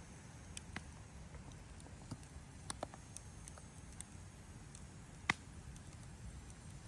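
Wood campfire crackling faintly, with a few scattered sharp pops and one louder pop about five seconds in.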